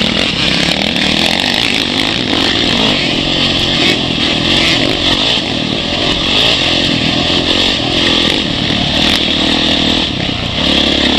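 Dirt bike engine running hard on a motocross track, its pitch rising and falling as the rider works the throttle, heard close up from a camera mounted on the bike.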